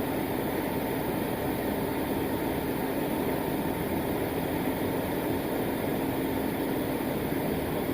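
A machine running steadily, an even drone with no change in pitch or level.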